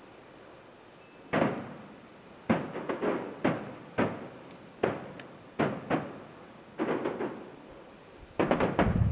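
Firework shells bursting about a mile off: a string of separate bangs, each trailing off in a rolling echo, growing into a rapid volley near the end.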